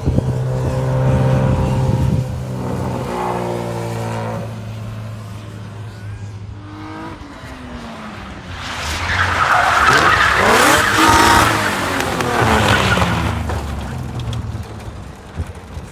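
Drift cars sliding past at high revs, the engine pitch falling and rising. About eight seconds in, loud tyre squeal and skidding build up, peak a couple of seconds later, then fade.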